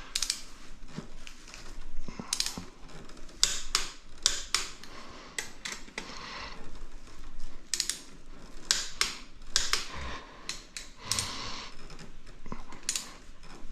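Ratchet of a click-type torque wrench tightening the engine bolts on a Honda TRX400EX top end: short runs of sharp clicks with pauses between strokes.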